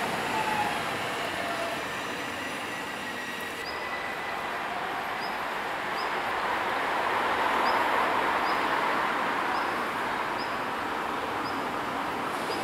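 Alstom Citadis Dualis tram-trains approaching a station. There is steady rolling rail noise with a falling whine in the first second. After a sudden change, a second approach grows louder to a peak about 8 seconds in.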